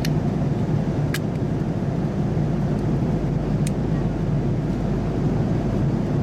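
Steady in-flight cabin noise of an Airbus A330-300: an even rumble of engines and airflow, with a few faint clicks.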